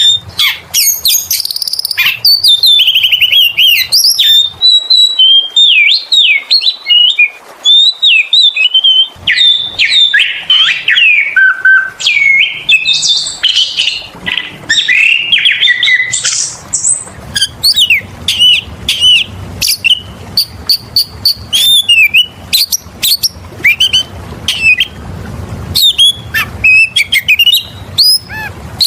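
Oriental magpie-robin (kacer) singing continuously and loudly, a fast, varied stream of clear whistles, sweeping notes and rapid chattering trills with no pause. This is the full-voiced 'gacor' song that lure recordings use to provoke other kacer into singing.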